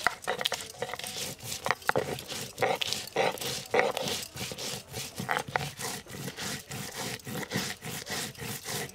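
Stone muller of a sil-batta grinding stone crushing green chillies on the flat stone slab: quick, repeated back-and-forth scraping strokes of stone on stone, with sharp knocks among them.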